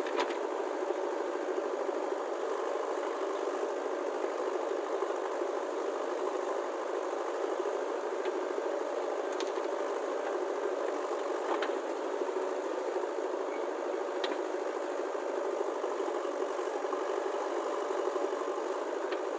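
A steady engine-like mechanical running sound, even throughout, with a few faint clicks scattered through it.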